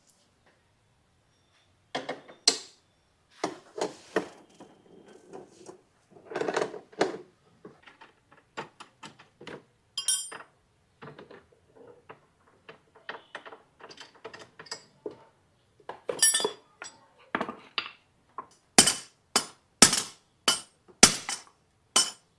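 Metal clinks and knocks of hand tools working on a motorcycle during repair, irregular at first, then a quick run of sharp strikes, about two a second, near the end.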